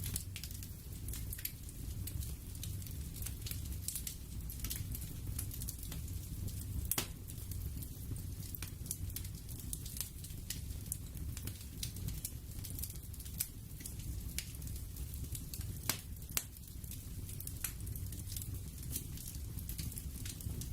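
Crackling fire: irregular sharp pops and snaps over a steady low rumble.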